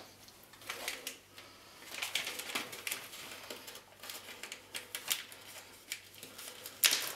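Stiff plastic vacuum-pack film of a bacon package crackling and rustling as it is handled and peeled open by hand, in irregular clicks and crinkles, with a louder crackle near the end.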